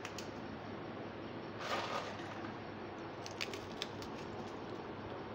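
Dry Marie biscuits being snapped and crumbled by hand: a short crunchy rustle just under two seconds in, then a quick run of small sharp cracks a little past halfway, over a steady faint hiss.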